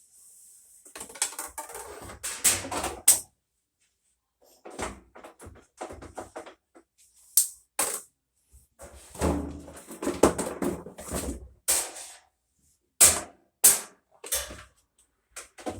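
Irregular clicks, knocks and clattering of parts and tools being handled on a top-load washer under repair, with a heavier rattle and scrape about nine seconds in.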